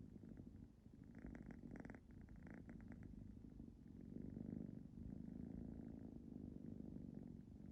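Ragdoll cat purring quietly: a low, pulsing rumble, with a raspier stretch from about one to three seconds in.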